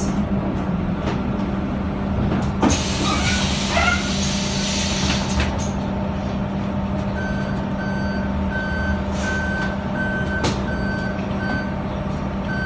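City bus idling at a stop with its engine humming steadily. About three seconds in there is a hiss of air from the bus's pneumatics. From about seven seconds in, an evenly repeating warning beep sounds, about two beeps a second.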